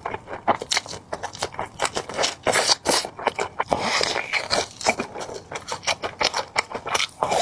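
Close-miked eating and food-handling sounds: a dense run of quick crackles, clicks and scrapes.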